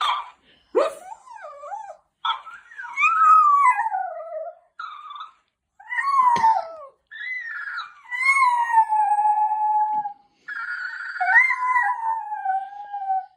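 Jack Russell terrier giving a couple of short yips, then a run of long, wavering howls that slide down in pitch, one after another with short breaks.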